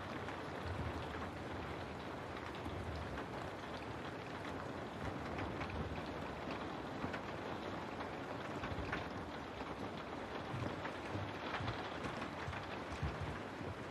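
Steady rain: an even hiss with scattered louder drops ticking through it and a soft low rumble underneath.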